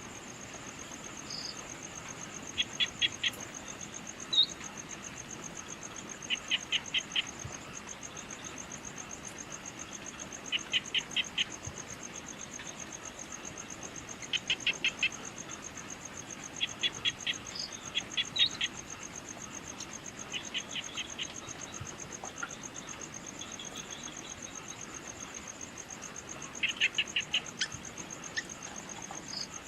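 Evening outdoor ambience: a steady, high, fast-pulsing insect trill, with short runs of four or five quick chirping calls repeating every few seconds and a few single high chirps.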